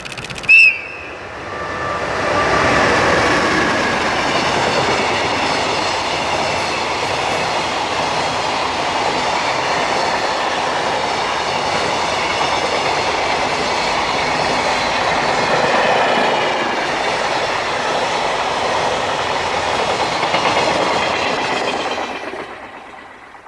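EH500 electric locomotive gives a short, loud horn blast just under a second in, then the locomotive and its long high-speed freight train pass with steady wheel and rail noise and a clickety-clack of wagons, fading away near the end.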